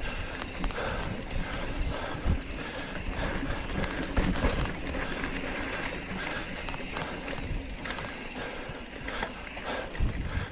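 Hardtail mountain bike rolling over dirt trail while coasting: the rear freehub ratcheting in rapid clicks, with tyre noise and small rattles from the bike.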